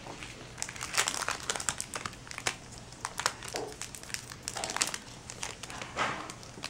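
Foil booster-pack wrapper crinkling as it is handled, with many small irregular crackles.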